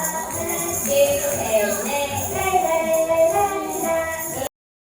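Music with singing and jingling percussion, cutting off abruptly about four and a half seconds in.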